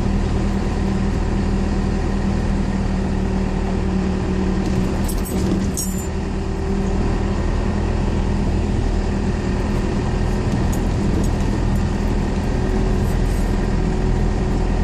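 Cummins 4BT four-cylinder turbo-diesel in a Ford F-150, heard from inside the cab, running steadily under light load while the truck drives slowly over gravel. A few brief clicks or rattles come about five to six seconds in.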